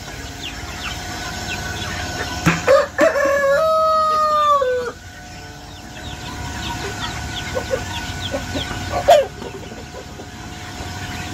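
A rooster crows once about three seconds in: a long call that falls at its end. Constant high peeping of chicks runs underneath, and a short, sharp sound comes about nine seconds in.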